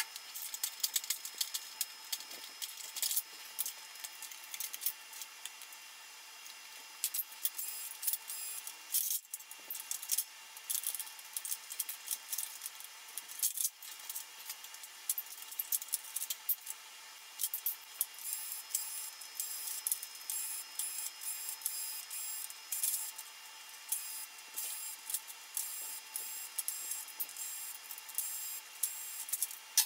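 Dense, rapid clicking and rattling of metal and plastic parts and hand tools being handled while an old stereo unit is dismantled, sped up, with a faint steady high tone underneath.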